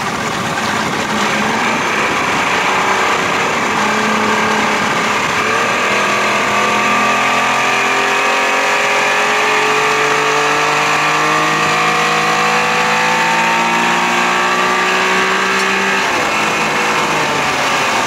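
1992 Johnson 60 hp two-stroke outboard motor running under load. Its pitch climbs steadily for about twelve seconds as the boat gains speed, then drops near the end as the throttle comes back.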